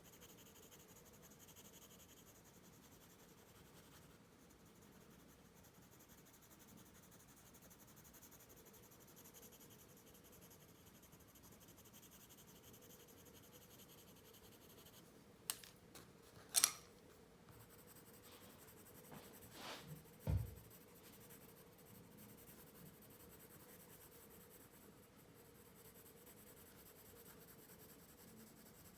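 Faint pencil strokes scratching on paper. About halfway through come a few sharp clicks, then a low knock.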